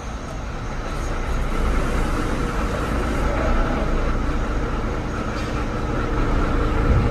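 Concrete mixer running steadily with a low mechanical rumble, its engine and turning drum churning a load on a construction site.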